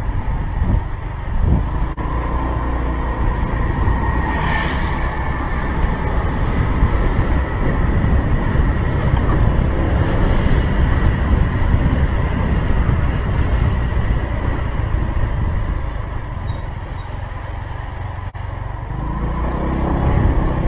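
Motor scooter riding along a city street, heard from a helmet camera: the engine running steadily under wind noise on the microphone. The sound eases off near the end as the scooter slows, then picks up again as it pulls away.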